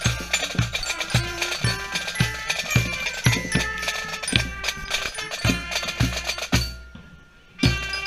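Scout marching band playing: a steady bass drum beat about twice a second with snare drums and a high melody line over it. The band breaks off about six and a half seconds in, and the drums strike up again a second later.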